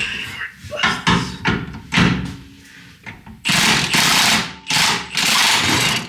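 Metal tool work on a 1987 Toyota 4Runner's front suspension while the torsion bar is being removed: several sharp knocks and clanks, then two longer noisy bursts of a little over a second each near the end.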